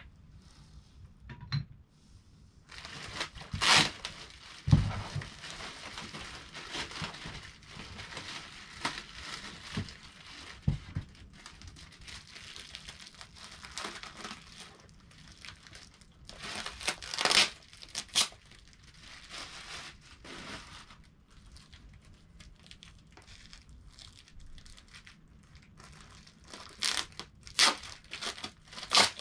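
Clear plastic packaging bags crinkling and rustling as parts are handled and unwrapped, with sharper loud crackles now and then and a couple of dull knocks.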